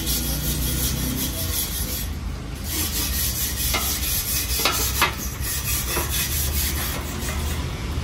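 Steady hand rubbing and scraping on the fish-tank stand as it is worked on for painting, with a few sharp knocks a little past halfway.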